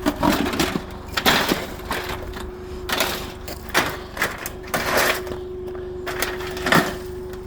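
Irregular metallic clanks and rattles of scrap air-conditioner parts being handled and loaded, about six separate bursts, over a steady hum.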